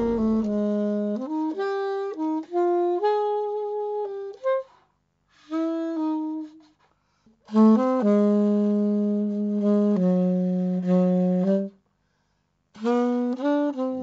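Solo saxophone playing a melody in short phrases of held notes, with brief pauses between phrases.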